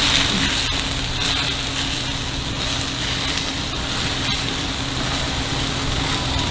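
Takoyaki sizzling steadily on a hot griddle, with a steady low hum underneath and a few faint clicks.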